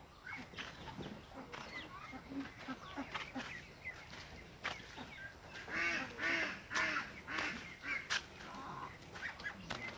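Farm poultry calling: many short, overlapping calls, with a loud run of repeated calls about six to seven and a half seconds in.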